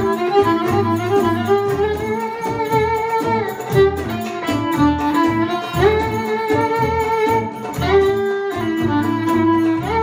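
Small acoustic band playing Middle Eastern belly-dance music: a violin carries the melody with sliding notes, over mandolin, bass and dumbek hand drum keeping a steady rhythm.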